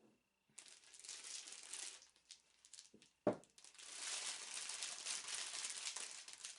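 Crinkly packaging rustling and crinkling as it is opened by hand, in a short stretch and then a longer steady one, with a single sharp knock about three seconds in.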